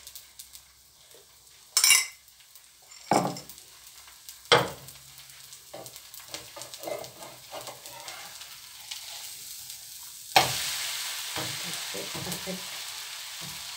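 Zucchini-carrot dosa frying in oil on a hot pan, with a few sharp knocks and scrapes of a metal spatula against the pan. About ten seconds in, a loud sizzle starts suddenly as the dosa is turned over onto the oiled pan, and it carries on.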